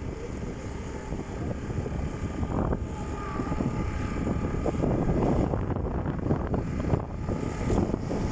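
Wind rumbling on the microphone mixed with the running and road noise of a vehicle, getting louder about halfway through.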